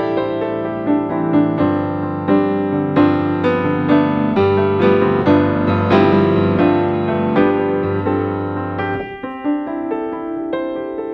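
Background piano music, a slow melody of struck notes over held low bass notes; the bass drops out about nine seconds in, leaving only the higher notes.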